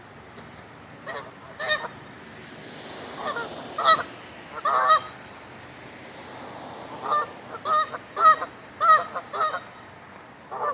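Geese honking: short, loud calls that come in bouts, several close together, with a lull of a couple of seconds near the middle.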